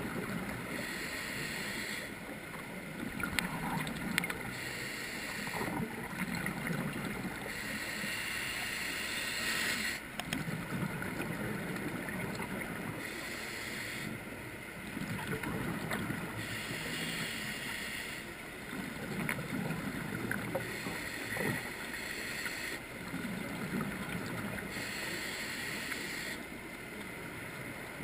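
Scuba diver breathing through a regulator, heard from a camera in an underwater housing: a hissing inhale alternates with a bubbling, burbling exhale, about six breaths in slow, even rhythm.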